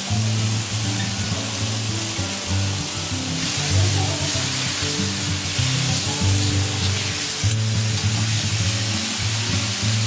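Beef steak sizzling on a hot teppanyaki steel griddle, a steady frying hiss, with background music playing over it.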